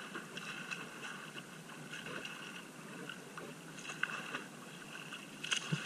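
Shallow sea water sloshing and splashing while a hooked fish thrashes at the surface, with a few short sharp clicks or splashes, the loudest near the end.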